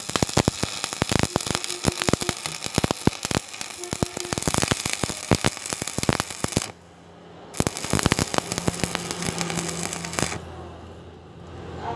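Stick-welding (SMAW) arc crackling on very thin square pipe. The arc breaks off about two-thirds of the way through, is struck again under a second later, and stops about ten seconds in, leaving a low hum.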